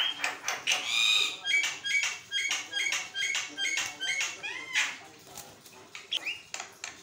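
Javan myna chattering in full song: a fast run of short squeaky and harsh notes, some rising whistles among them, easing off about five seconds in, with a couple of gliding whistled notes near the end.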